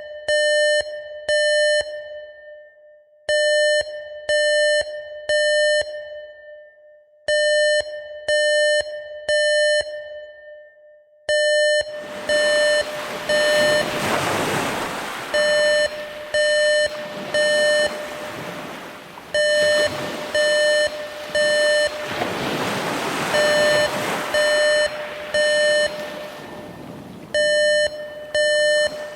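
Mock emergency alert alarm: a steady beeping tone sounding in groups of three, a group about every four seconds. About twelve seconds in, the sound of ocean waves comes in behind the beeps, swelling and fading in slow surges.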